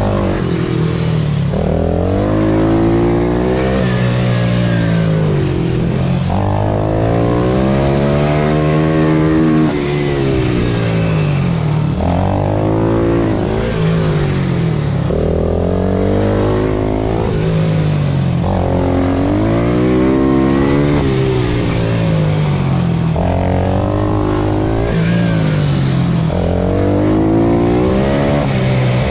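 Pit bike engine heard from onboard during a lap, its note climbing again and again as it accelerates out of each corner and dropping back as it slows for the next.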